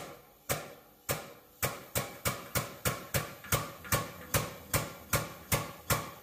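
A 30-ton shop press being pumped to push a bearing off its shaft: sharp, regular metallic clacks, about two a second at first and speeding up to about three a second.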